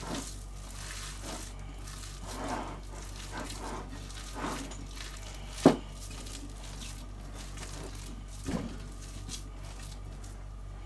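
Hands kneading and squeezing a raw ground-beef mixture in a bowl: soft, wet squelches and pats. A sharp knock on the bowl comes about halfway through and a smaller one later, over a low steady hum.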